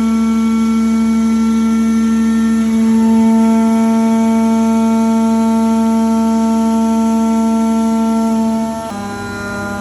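CNC milling machine running a cut, its spindle and drives giving a steady pitched whine. The pitch drops abruptly and the sound gets quieter near the end.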